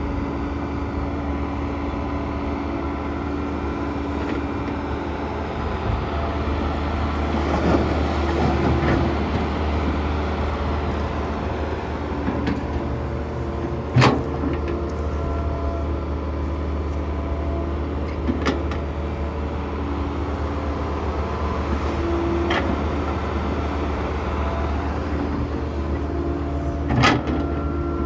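Kobelco SK120-1 excavator's diesel engine running steadily while loading a dump truck, with four sharp metallic knocks, the loudest about halfway through and another near the end.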